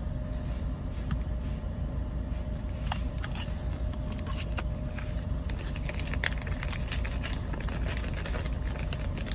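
Scattered light clicks and crinkling from a small plastic zip bag being handled, over a steady low rumble with a faint hum.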